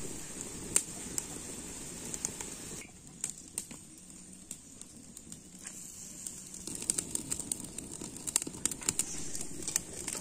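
Curry boiling hard in a metal kadai over a wood fire, a steady bubbling hiss broken by sharp crackles and pops. It dips quieter about three seconds in, then the crackling grows busier again from about seven seconds.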